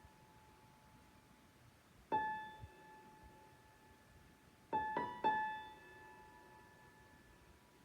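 Electric piano improvising with sparse high notes: one note about two seconds in, then three quick notes around five seconds in, each left to ring and fade.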